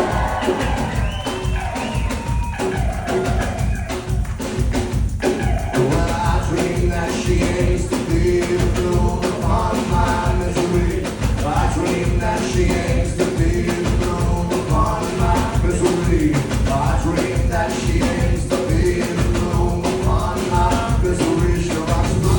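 Live band playing, with drums and bass keeping a steady, driving beat under pitched instrumental lines.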